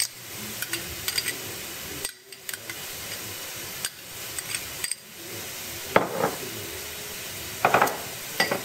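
Chicken pieces sizzling in a stainless steel pan with soy sauce and oyster sauce in it, with a few short knocks, the loudest about six seconds in and again near the end.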